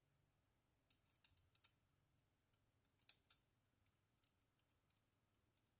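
Faint small plastic-on-metal clicks and scrapes of black plastic retaining washers being pushed onto the metal stems of a Noctua cooler backplate. They come in short clusters about a second in and around three seconds in, with a few single clicks after.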